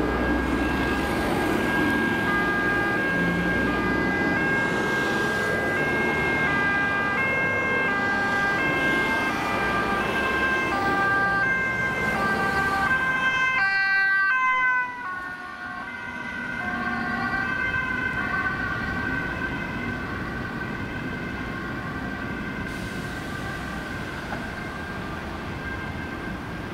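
Ambulance siren alternating between two pitches as the ambulance approaches on an emergency run. About fifteen seconds in it passes: the siren drops in pitch and level, then fades as the ambulance drives away.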